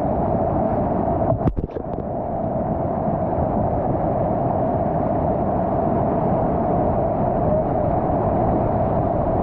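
Steady rush of whitewater through a rapid around a kayak, with a brief dip about a second and a half in.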